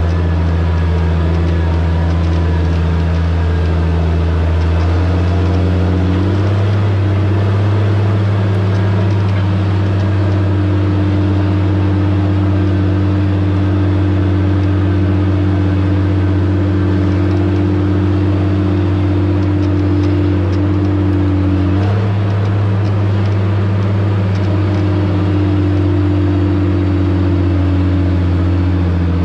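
Diesel engine of a John Deere logging machine running steadily, with the engine speed rising about six seconds in and changing again around twenty-two seconds.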